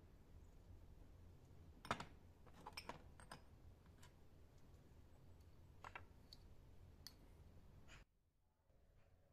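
Faint clinks and taps of a metal teaspoon against small ceramic spice jars, and of jars set down on a metal tray. The sharpest tap comes about two seconds in, followed by a quick cluster of clinks, then a few scattered ones over a low steady hum.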